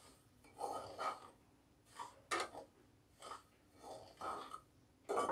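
Spatula stirring dry semolina in a kadai: a string of short, faint scraping swishes at irregular intervals.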